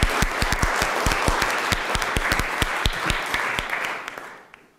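Audience applauding, a dense patter of many hands clapping that dies away over the last second.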